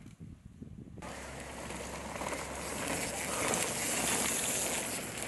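From about a second in, the rush of a downhill mountain bike rolling past over grass and dirt, mixed with wind on the microphone. It builds to its loudest a little past the middle as the bike goes by.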